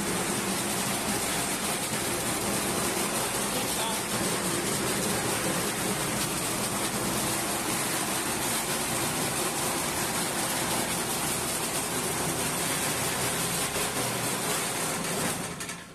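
Small petrol engine running steadily, driving a rice thresher's spinning drum and blower fan by V-belt, with a dense whirring machine noise over a steady engine hum. The noise drops away suddenly near the end as the engine is shut off.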